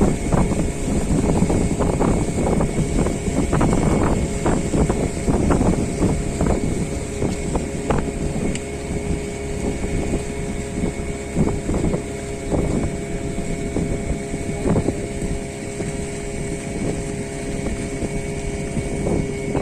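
Motorboat engine running steadily under way, with wind on the microphone and many uneven short knocks and slaps over the engine hum.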